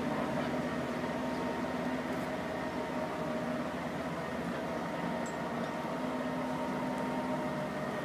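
Steady mechanical hum from a running machine: several steady tones over a low hiss, unchanging in level.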